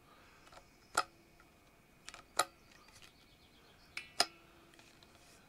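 Chopper1 splitting axe's hinged steel side wedges being worked by hand: a few sharp metallic clicks spread over several seconds, some leaving a brief ring.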